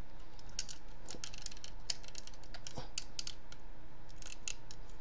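Irregular small clicks and ticks of a transformable Optimus Prime toy figure's plastic and painted parts being pushed, folded and snapped into place by hand.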